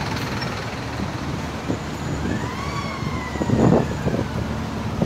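Emergency vehicle siren wailing over steady road traffic noise: one glide rising and then slowly falling, starting about two seconds in. A brief louder low rumble comes about three and a half seconds in.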